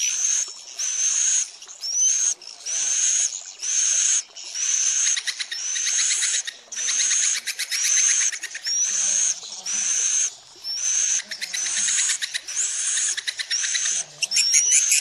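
Edible-nest swiftlet calls repeated in quick succession, about one a second or a little faster: each is a buzzy twitter ending in a rising whistle. This is a swiftlet lure call, played to draw swiftlets in to roost in a swiftlet house.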